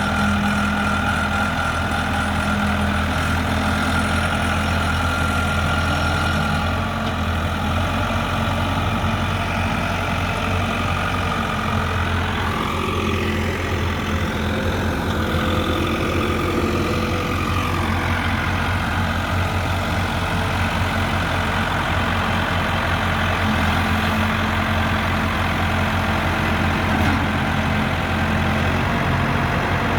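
Case 580 Super M backhoe's diesel engine running at a steady idle. Midway through, a whine rises and then falls in pitch.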